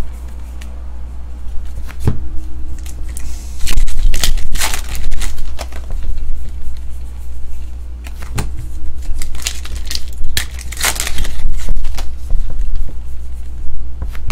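Thin Topps trading cards being flicked and slid one at a time through a stack held in the hand: a run of sharp clicks and papery slides, some louder than others, over a steady low hum.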